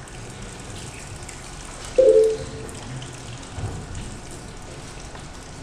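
A single short ringing clink about two seconds in, fading within half a second, over a steady low background hum.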